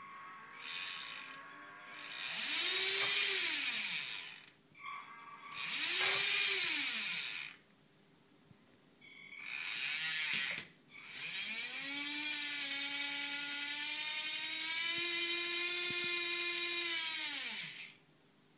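Small geared electric motor of an RC forklift running in several bursts as the transmitter stick is moved. Each burst whines up and back down in pitch with the motor's speed, and the last is held for about seven seconds.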